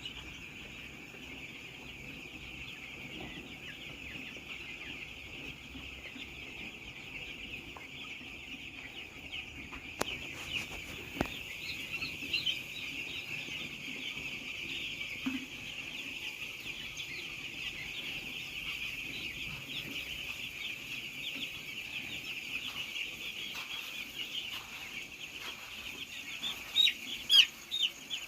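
A large flock of seven-day-old chicks peeping without pause, many high short chirps blending into one dense chorus. A couple of sharp clicks come about ten seconds in, and a few louder chirps close by come near the end.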